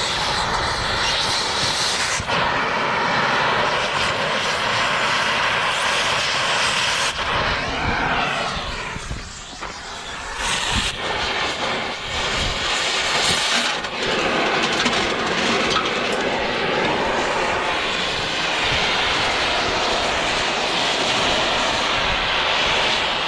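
Oxy-fuel torch flame burning with a steady rushing hiss, heating a tapered roller bearing so it expands and drops off the wheel planetary hub. The sound briefly softens about eight seconds in, then carries on.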